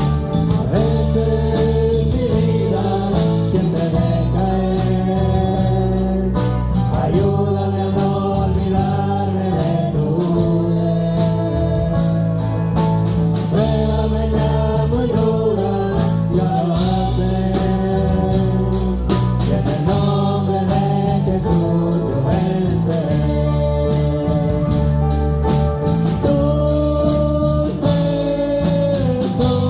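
Live worship music: voices sing long held notes over bass and band, with a steady cymbal beat ticking through.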